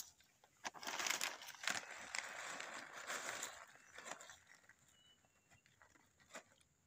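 Rustling and crinkling of a plastic cat-food bag being handled, with a few sharp taps. It is loudest in the first few seconds and dies down to quiet in the second half.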